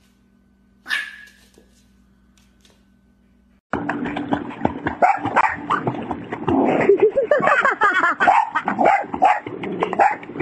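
One short, high yip from a French bulldog puppy about a second in. Then, from about four seconds, loud splashing water with a dog's yelps and whines over it.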